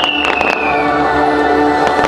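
A fireworks show soundtrack with a choir holding a steady chord, and firework shells cracking several times over it. A high whistle slides down in pitch during the first second.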